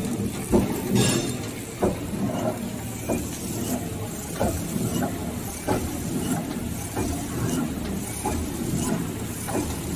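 Servo pillow packing machine (flow wrapper) running steadily while it wraps face masks in film. A sharp click comes about every 1.3 seconds over its even mechanical hum.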